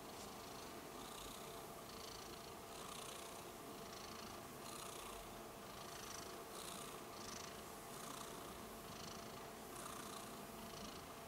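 Domestic cat purring softly and steadily while being stroked on the head, the purr swelling and fading in an even rhythm.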